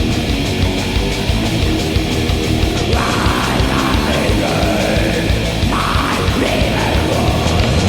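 Black metal recording: distorted guitars and drums, loud and dense, with a new higher part coming in about three seconds in.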